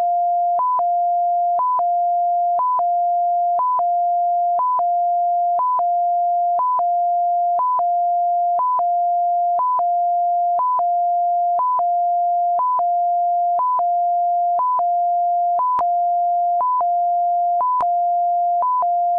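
Synthesized warning siren for an engineering repair truck, generated in Audacity rather than recorded. A steady low tone is held for most of each second, then jumps briefly to a higher note, repeating evenly about once a second.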